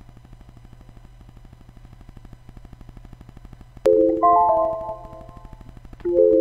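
Quiz countdown-timer sound effect: fast, even ticking. When the timer hits zero, a click and a short rising chime of a few notes. A second rising chime comes about two seconds later, as the correct answer is revealed.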